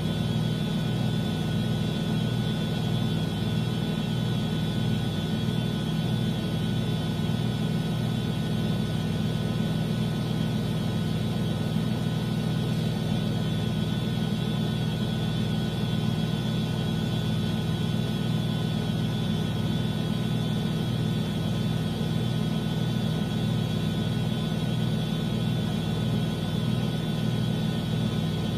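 Miele washing machine running, a steady low motor hum with faint high whining tones over it, unchanging throughout.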